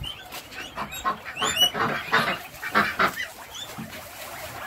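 Penned domestic poultry calling: a run of short harsh calls mixed with brief high peeping chirps that rise in pitch.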